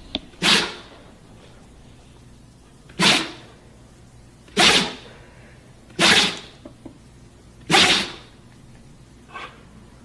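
A series of short, sharp sneezes, five loud ones about one and a half seconds apart and a fainter one near the end.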